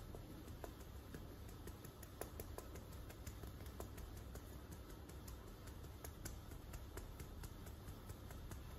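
Fingers tapping a metal mesh sieve to sift milk powder: faint, irregular light ticks, several a second, over a steady low hum.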